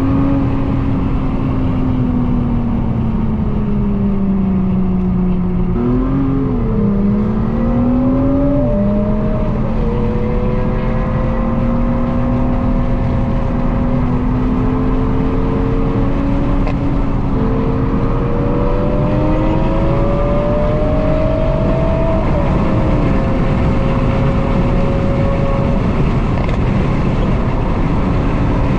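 Nissan GT-R R35's twin-turbo V6 heard from inside the cabin over steady road and tyre noise while driving. The engine note sags, then rises and drops sharply twice between about six and nine seconds in, and afterwards holds a fairly even pitch with small rises and falls.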